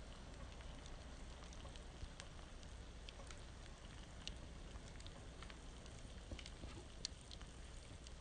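Wood campfire crackling faintly: irregular sharp little pops scattered over a low steady hiss.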